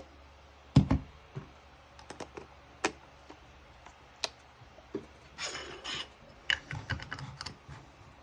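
Handling noise from a camera and its Sony Zeiss 16-35 f4 lens being tested after repair: scattered clicks and taps, a heavier thump about a second in, and a short rustle around the middle.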